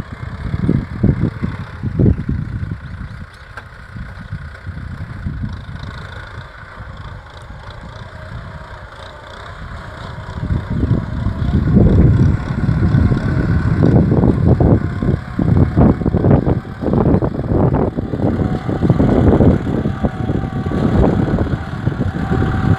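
Kubota tractor's diesel engine running while it ploughs a rice field, an uneven low rumble. It drops back for several seconds, then grows louder again from about halfway through.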